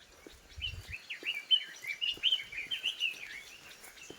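A songbird singing a fast, jumbled run of short chirps that starts just before a second in and stops about three and a half seconds in.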